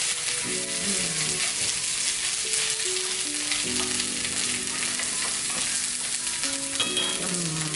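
Shredded Napa cabbage and pork-and-shrimp filling sizzling in a hot cast iron skillet, stirred with a wooden spatula.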